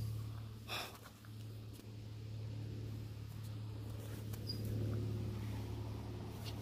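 A steady low hum with even overtones, with a brief noisy rustle about a second in and a couple of faint, short high chirps.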